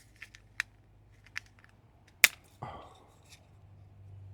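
A few sharp plastic clicks and snaps from a Roku device's clip-fastened plastic case being pried apart and handled, the loudest a single hard click about two seconds in.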